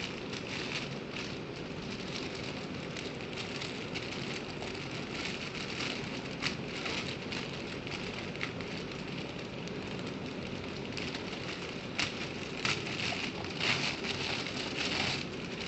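Scattered crackles and rustles of packaging as a laptop is handled and drawn out of its box, over a steady hiss; the crackling comes more often near the end.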